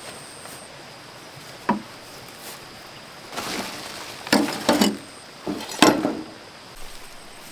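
A few sharp wooden knocks: a single one about two seconds in, then a close cluster of knocks and clatters a little after the middle.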